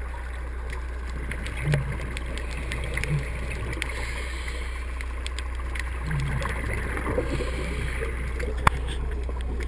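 Muffled underwater noise picked up through a camera's waterproof housing: a steady low hum and hiss, with three short low bumps and one sharp click near the end.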